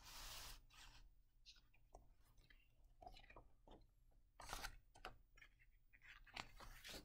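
Faint rustles, scrapes and taps of a hardcover picture book being opened and its pages turned by hand, in a few short bursts.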